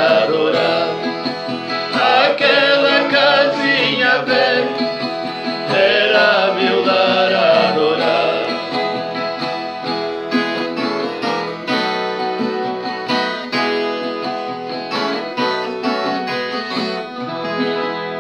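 Closing instrumental of a Brazilian moda de viola song: viola caipira and other plucked strings playing, with a wavering melody line over them in the first half, then the plucked strings alone, dying away toward the end.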